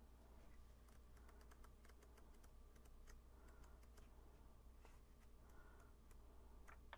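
Faint handling of a coloring book's paper pages as they are leafed through: light clicks and a couple of soft swishes of turning pages.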